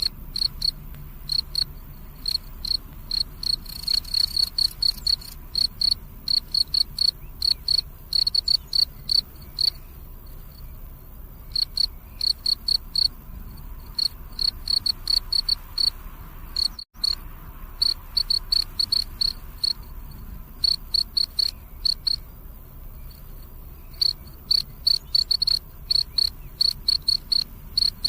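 Cricket chirping at night in short, evenly spaced, high-pitched chirps, several a second, pausing now and then. The sound cuts out for a moment just past halfway.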